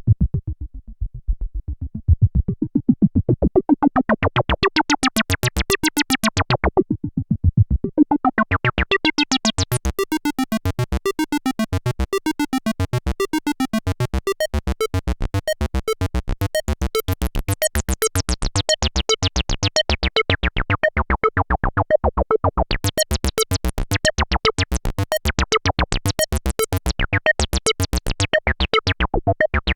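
Arturia MicroFreak synthesizer playing a squelchy acid bassline: a fast, repeating run of short notes. A resonant filter sweeps it from dull to bright, closing near the start and again briefly partway through, then opening wide with sharper, buzzier notes in the later part.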